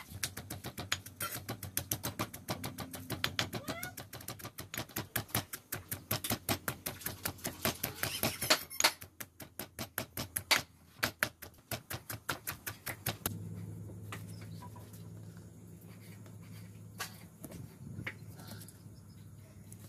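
Pestle pounding chillies and garlic in a stone mortar, a steady run of knocks at about four a second that stops about thirteen seconds in. After that a low steady hum remains, with a couple of knife taps on a wooden chopping board near the end.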